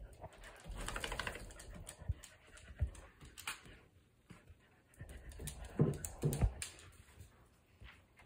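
Two dogs at play over a rope toy: dog breathing and vocal sounds with light clicks, probably claws on a wooden floor, loudest about a second in and again around six seconds in.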